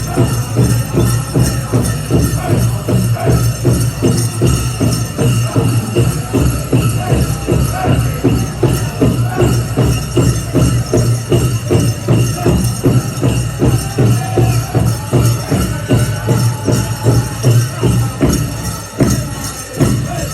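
Powwow drum music: a big drum struck in a steady, fast beat of about three to four strokes a second, with a bright jingling over it.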